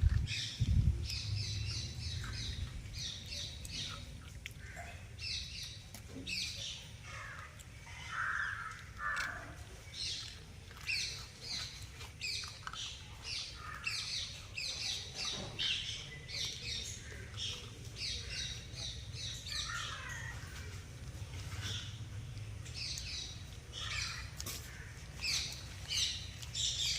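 Puppies eating, with a steady run of short, high-pitched squeaks and squeals, a few each second, among small wet clicks.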